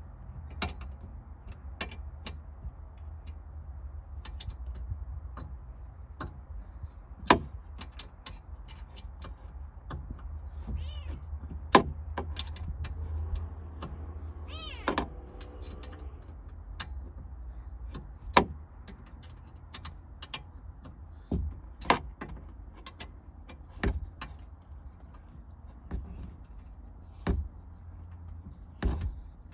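A house cat meowing once about halfway through, one pitched call that rises and falls, among irregular sharp clicks and knocks.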